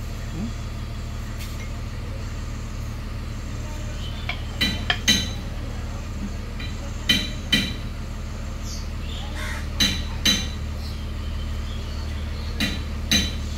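Sharp metal-on-metal clinks in pairs, about half a second apart, repeating four times roughly every two and a half seconds, typical of tools striking truck wheel hub parts. A steady low hum runs underneath.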